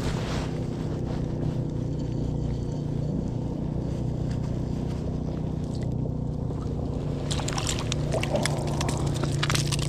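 A steady low mechanical hum throughout. From about seven seconds in it is joined by a run of clicks and rattles as a small crappie is brought up through the ice and handled.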